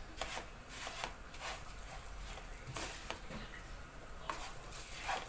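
Light clicks and taps of cookware and utensils being handled at the stove, about ten short knocks spaced irregularly.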